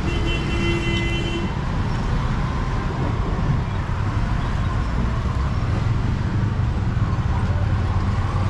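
Steady city street traffic, engines running with a constant low rumble. A vehicle horn sounds one steady toot lasting about a second and a half at the start.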